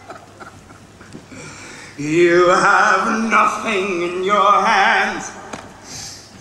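A solo male voice singing a few long, held notes with vibrato, coming in about two seconds in after a quiet stretch and fading out near the end.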